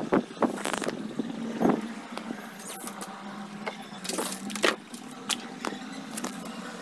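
Sharp clicks and knocks of a wooden wardrobe's metal latch and door being opened, the loudest a little past the middle, with small rattles of things on the shelves. A low steady hum runs underneath.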